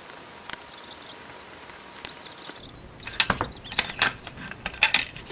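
Quiet room tone with a few faint high chirps for the first half. After about two and a half seconds come a run of sharp clicks and knocks from plastic RC-kit chassis parts being handled and screwed together with a screwdriver.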